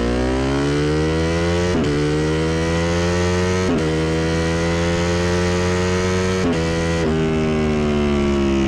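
BMW S1000RR's inline-four engine at full throttle, climbing in pitch through the gears with about four quick upshifts, each a sharp break and drop in pitch, then holding nearly steady near the end.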